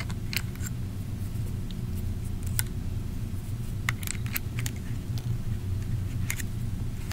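Scattered light clicks and taps of small metal parts in a Glock 23 Gen 4's polymer frame as the trigger mechanism housing is worked loose, over a steady low hum.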